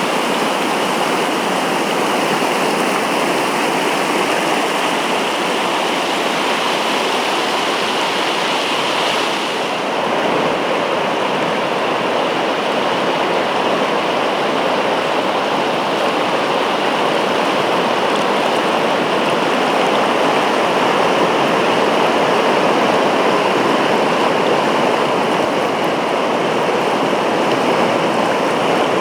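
Tower Fall, a 132-foot waterfall on Tower Creek, rushing with a steady, unbroken roar of falling water. The highest hiss thins a little about ten seconds in.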